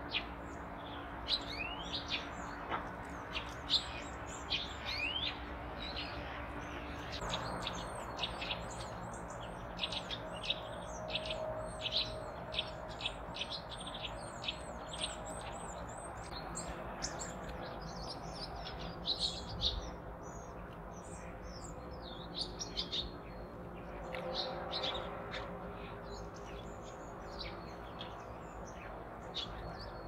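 Small songbirds chirping and calling, a constant scatter of short, sharp high notes, with a fast run of evenly repeated very high notes in the middle.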